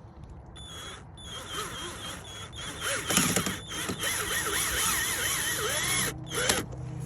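Hand screwdriver driving a self-tapping screw into a plastic tail-light housing: creaking and scraping with wavering squeaks, in stretches that start about half a second in and stop just after six seconds.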